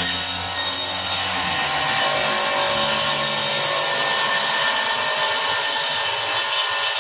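Table saw ripping along the edge of a rough-cut board, the blade cutting steadily through the wood.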